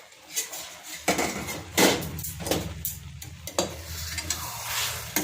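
A spoon stirring and scraping in a cooking pan of simmering amla and jaggery, with several sharp knocks of the spoon against the pan and a sizzling hiss. A steady low hum starts about a second in.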